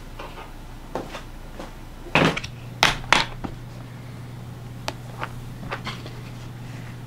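Hard plastic pistol case being opened: a few sharp plastic snaps as the latches are released, the loudest about two to three seconds in, then lighter clicks as the lid is lifted.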